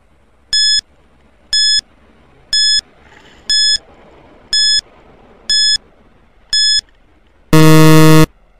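Quiz countdown timer sound effect: seven short electronic beeps, one a second, then a loud, low buzzer of under a second near the end as the count reaches zero, signalling that time is up.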